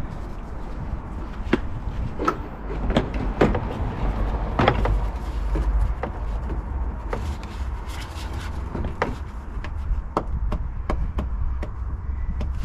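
Irregular light clicks and knocks of a Smart Fortwo's plastic front body panel being tugged and handled as it is worked loose, over a steady low rumble.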